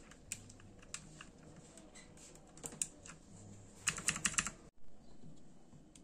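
Keys clicking on a T-Dagger Naxos T-TGK310 mechanical keyboard with clicky Outemu Blue switches: a few scattered presses, then a quick run of loud clicks about four seconds in that cuts off abruptly.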